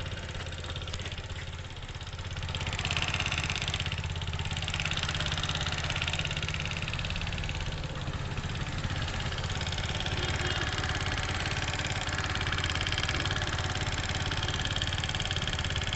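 TVS Apache RTR 160 4V single-cylinder engine idling steadily with a loud top-end clatter, a rapid "khatak khatak" knocking. The mechanic takes the noise for the timing chain or the tappets, the two usual sources of it.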